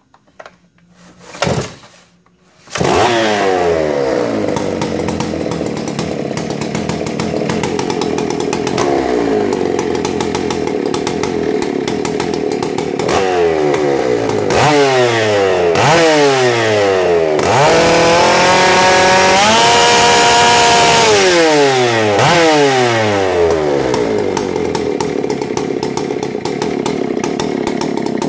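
Stihl 084 chainsaw's big two-stroke engine, fitted with a Buckshot dual-port muffler and a high-flow intake, starting after a few short noises about three seconds in. It is revved up and down repeatedly, held at high revs for a few seconds in the middle, then drops back to a lower speed.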